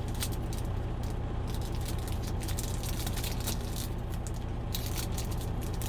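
A trading-card pack being torn open and its wrapper crinkled, heard as scattered short crackles, over a steady low rumble like an idling engine.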